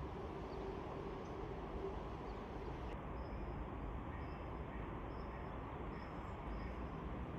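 Railway station ambience: a steady low hum and background noise, with a short high chirp repeating about once a second from about three seconds in.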